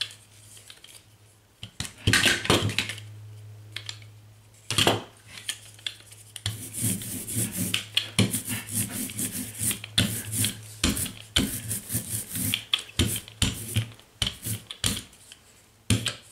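A hand brayer rolled and rubbed quickly back and forth over paper laid on a painted plate, pressing the paper down to lift the paint. A couple of louder knocks come first, then about ten seconds of fast, close-set rubbing strokes.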